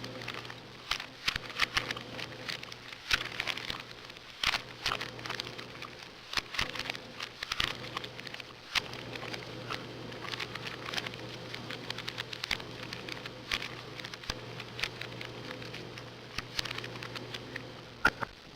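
Plastic Rubik's cube layers being turned fast: rapid, irregular clicking and clacking, over a steady low hum.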